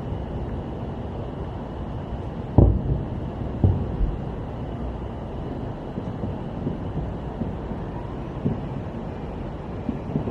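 Steady low outdoor rumble with wind on the microphone, broken by two dull thumps about a second apart, a few seconds in.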